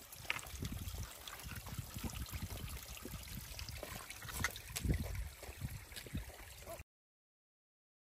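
Small mountain stream trickling and gurgling over rocks, with scattered taps of footsteps and trekking poles on stone; the sound cuts off to dead silence near the end.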